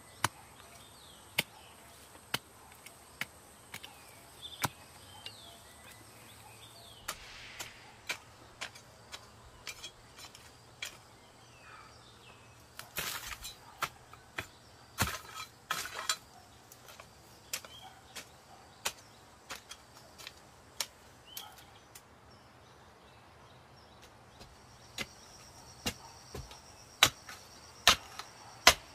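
Sharp chopping knocks of a blade or tool striking bamboo, irregular, about one a second, with a quicker flurry midway and the hardest strikes near the end. A faint steady insect buzz runs high in the background.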